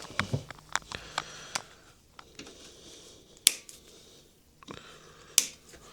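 A series of sharp clicks and light knocks: a quick run in the first second and a half, then sparser ones, with two louder snaps about three and a half and five and a half seconds in.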